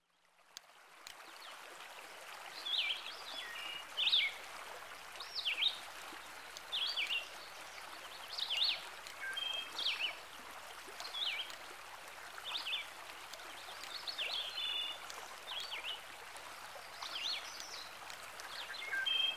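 Running water hissing steadily, fading in at the start, with a bird repeating short whistled calls that sweep quickly up and down, about one every second or so.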